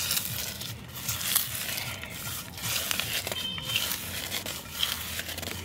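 Fingers crushing crisp fried dried red chillies against a steel plate: irregular small dry crackles and scratches.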